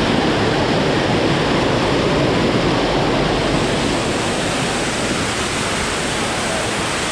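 Steady rush of a waterfall's cascading water.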